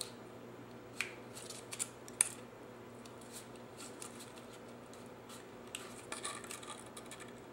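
Faint handling of cardstock: a few light clicks in the first couple of seconds, then soft paper rustling and crinkling near the end as a tabbed strip is pressed around the curved end of a paper mailbox.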